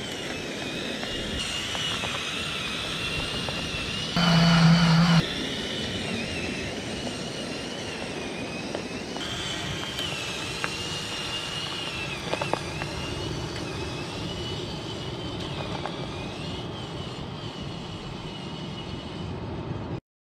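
Electric motors and gear train of a LEGO Technic Powered Up remote-control car whining steadily as it crawls over rock, the pitch wavering up and down. About four seconds in, a loud buzzing tone lasts about a second.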